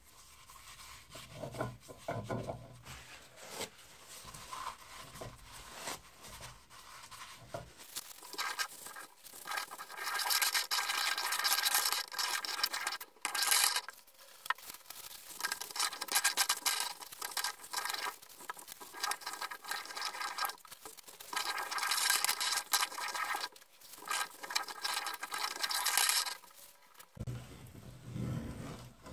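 Hand-cranked cast meat grinder being worked, giving a dry rasping, scraping noise in long runs with short breaks. Near the end it turns lower and quieter as crumbly food is pressed through it.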